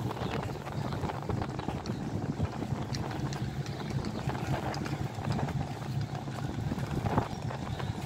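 Wind buffeting the microphone, with footsteps on stone paving.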